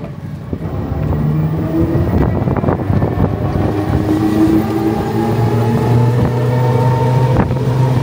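Auto-rickshaw engine running as the vehicle drives along a road, with road noise. Its note shifts a few times, then holds steady over the last few seconds.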